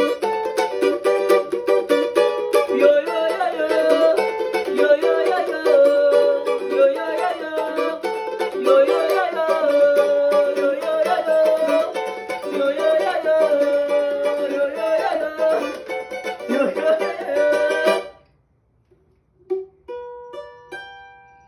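Cavaquinho strummed in a fast, steady rhythm, then stopping short near the end, leaving a few lone notes ringing out and fading.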